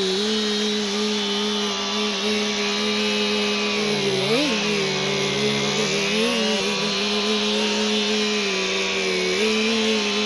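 Chainsaw engine running at high speed with a steady whine. About halfway through its pitch briefly rises and then sags before recovering, as it does when the chain bites into wood.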